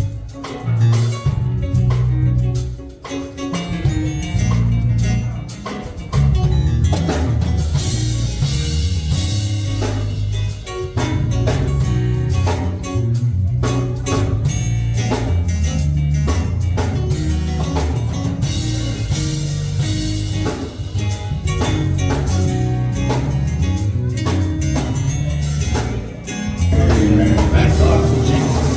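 Instrumental band music with drums, bass and guitar playing a steady beat, with a dip in level about a few seconds in and a swell near the end.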